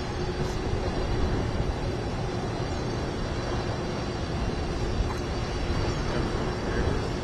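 Arriving aircraft's engines: a steady rumbling noise with one constant hum through it.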